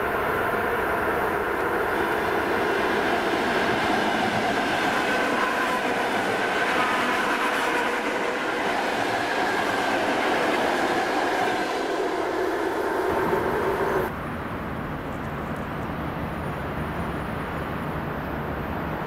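A train running past on the rails: loud, dense rail noise with several wavering high tones over it. About fourteen seconds in it drops suddenly to a quieter, lower rumble.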